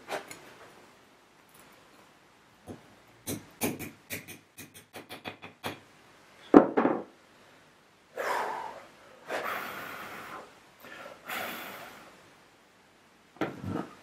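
Metal clinks and taps of a ring spanner working a nut welded onto a broken stud in an aluminium saildrive housing, as the stud is worked to free it; a heavier metallic knock about six and a half seconds in, then several short stretches of rough scraping noise.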